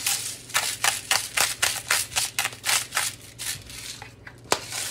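Hand-twisted salt grinder grinding salt: a quick run of dry, crunching strokes, about four a second, then one sharper click near the end.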